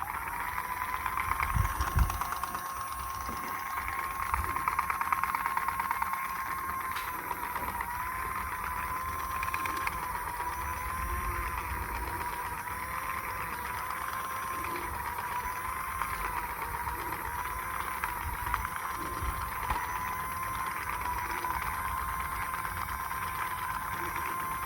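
A small electric motor running steadily, with a whine whose pitch wavers slowly over a fine buzz.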